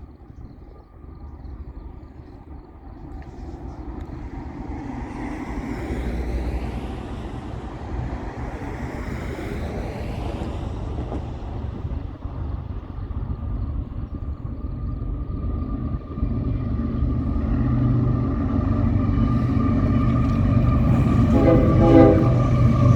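Train approaching, its rumble and rail noise growing steadily louder, with a short pitched tone about a second before the end.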